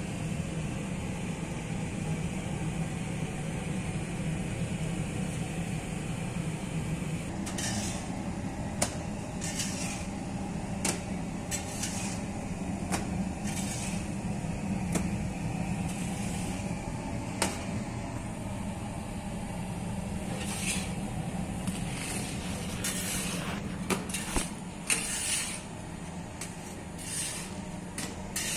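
Steady low hum of an industrial conveyor bread oven running. From about seven seconds in, it is joined by irregular clicks and short scraping sounds as a metal spatula slides under baked flatbreads on the mesh belt and lifts them off.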